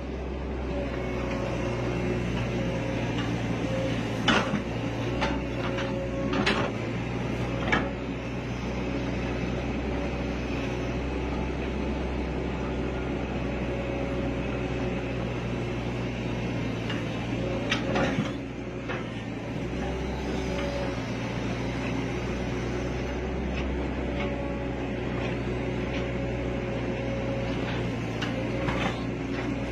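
Hitachi excavator's diesel engine running steadily, heard from inside the operator's cab, with several clunks as the boom and bucket dig out the peat.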